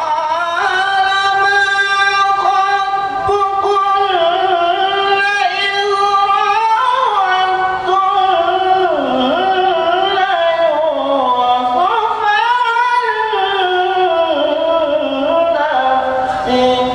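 A young man's voice in melodic Qur'an recitation (tilawah), amplified through a microphone. It is one long, almost unbroken chanted phrase that rises and falls in ornamented glides and ends near the end.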